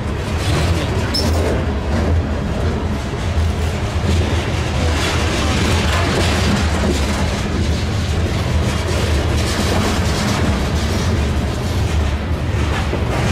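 Covered grain hopper cars of a freight train rolling past at close range: a steady, loud rumble and rattle of steel wheels on the rails.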